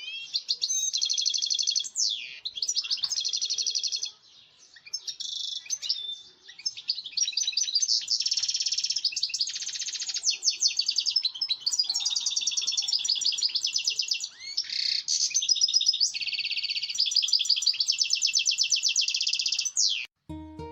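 A small songbird, the bird called 'tuffahi' by Arab bird-keepers, singing a long run of rapid trills and twittering phrases, with only brief pauses.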